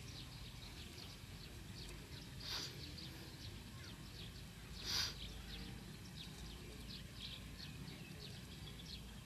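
Outdoor ambience of many small birds chirping, over a steady low rumble. Two louder brief sounds come about two and a half and five seconds in, the second the loudest.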